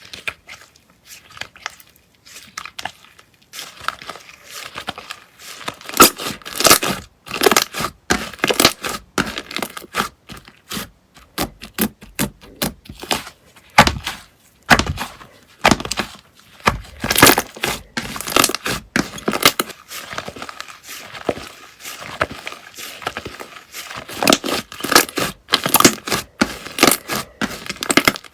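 Slime being squeezed, stretched and pressed by hand, giving a dense, irregular stream of sticky pops and crackles.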